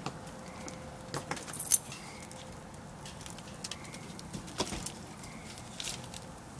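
Wood fire crackling, with scattered sharp pops. The loudest pop comes a little under two seconds in.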